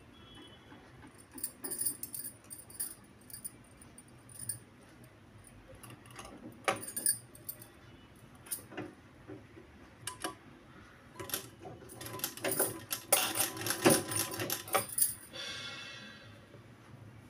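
Glass bangles on a wrist clinking and jingling against each other as the hands gather and pleat fabric. The clinks come in scattered bursts and are thickest and loudest about three-quarters of the way through.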